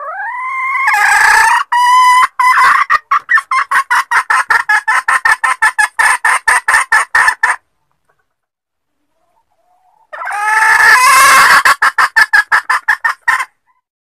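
Junglefowl hen calling: a loud rising squawk that breaks into a long run of rapid, quickening clucks, then a second, shorter bout of the same a few seconds later. It is the hen's call to a mate, used as a lure for wild junglefowl cocks.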